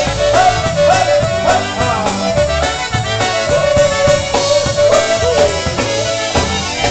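Live polka band playing an instrumental passage: a held, wavering lead melody over electric bass guitar and a steady beat.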